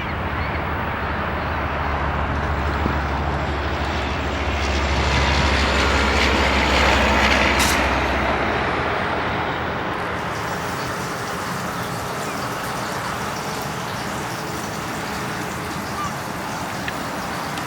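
A vehicle passing: a deep rumble with broad noise swells to a peak about seven seconds in, then fades, leaving a steady background hiss.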